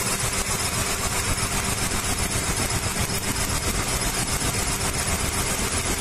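Maruti 800's three-cylinder petrol engine idling steadily while misfiring on one cylinder, running on two: a chafed spark plug wire is arcing to the air-cleaner clamp instead of firing its plug.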